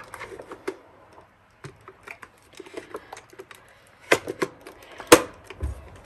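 Hard plastic clicks and knocks as the clean-water tank is fitted back into a Dyson Submarine wet roller head, with two louder snaps about four and five seconds in.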